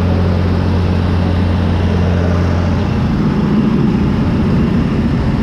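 John Deere 3350 tractor's diesel engine running, heard from inside the cab. A steady low hum gives way about halfway through to a rougher, noisier drone.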